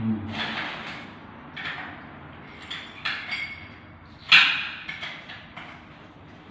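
Irregular knocks and metallic clinks from hand work fitting a wash-basin bracket to a wall, with a sharp knock about four seconds in the loudest.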